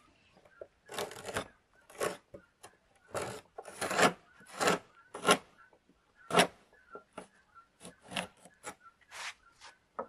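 A hand scraper rasping old paint off wood in short, irregular strokes, about one or two a second.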